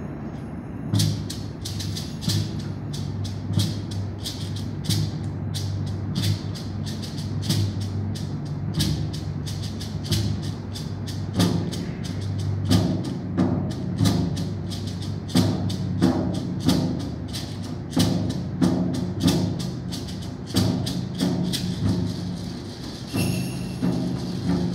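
Percussion quartet playing a concert piece. Low, ringing timpani notes sound under a steady pattern of sharp, high clicks that begins about a second in. More drum strokes join about halfway through.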